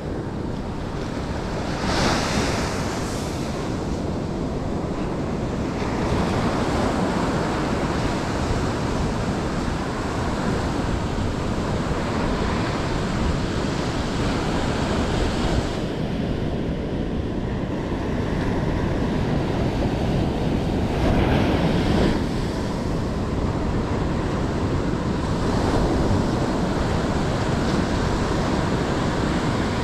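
Ocean surf breaking on a sandy beach, a steady rush of water that swells each time a wave breaks and washes up the sand, with wind buffeting the microphone.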